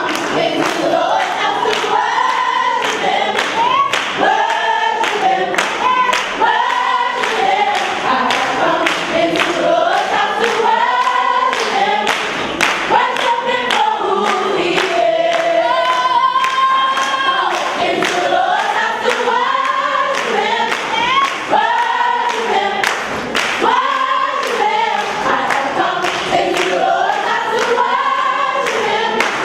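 Teen gospel choir singing, with sharp claps keeping a steady beat about twice a second.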